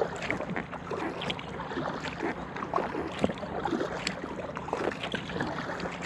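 Kayak paddle dipping into the water, with small splashes and drips running off the blades throughout as an inflatable kayak is paddled.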